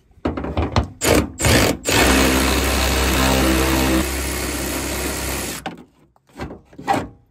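Cordless electric ratchet backing out a 10 mm bolt: a few clicks and knocks as it is set on, then about three and a half seconds of steady motor whirr that drops a step in level partway through, and two more knocks near the end.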